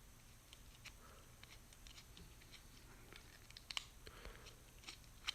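Faint, scattered small clicks and ticks of a Torx driver and metal knife parts being handled while a folding knife's screws are worked loose, the sharpest click about three-quarters of the way in.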